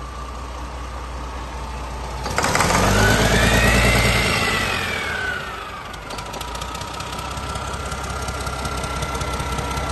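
Mack E7-350 inline-six diesel engine running on a test stand. About two and a half seconds in it is revved: the pitch climbs, peaks and falls back over roughly three seconds. It then settles to a steady idle with a fast diesel clatter.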